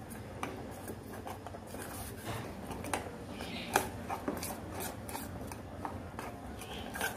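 Steel ladle stirring and scraping a thick, lumpy chocolate milk mixture around a stainless steel pot, with irregular light clicks as the ladle knocks the pot's sides.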